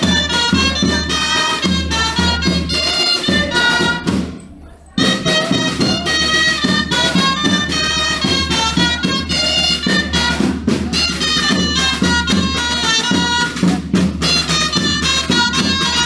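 A dulzaina playing a quick folk melody over a snare drum's beat, with a short break about four seconds in before the tune starts again.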